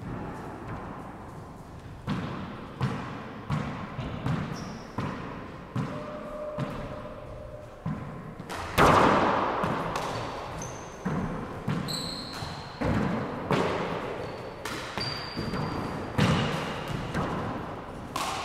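Four-wall handball rally: the rubber ball smacks off gloved hands, the walls and the hardwood floor about once a second, each hit ringing in the enclosed court, the loudest about nine seconds in. Short shoe squeaks on the hardwood come in between the hits.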